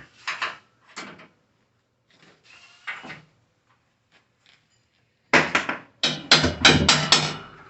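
Metal knocks and clanks from elevator parts being worked loose: a few separate knocks, then a quick run of loud bangs and clatter near the end.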